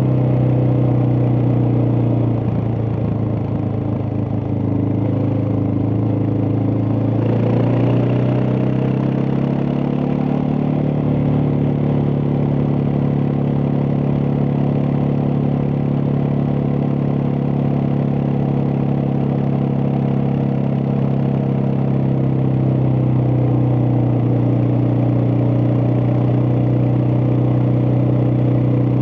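Suzuki DR650's single-cylinder four-stroke engine running while riding. The engine note dips a couple of seconds in, rises as it accelerates around seven seconds in, holds steady, then settles lower near the end.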